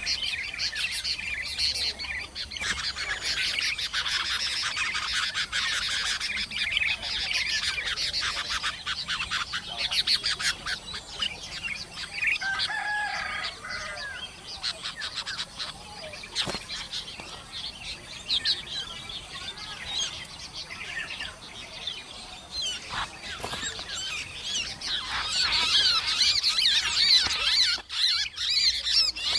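Small birds chirping in dense, rapid high cheeps, busiest in the first ten seconds and again near the end, with a short lower call about twelve seconds in.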